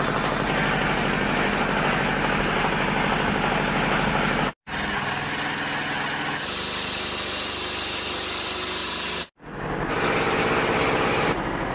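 Sawmill woodworking machinery running steadily with a motor hum. It breaks off twice with a sudden brief silence, and each time comes back with a somewhat different sound.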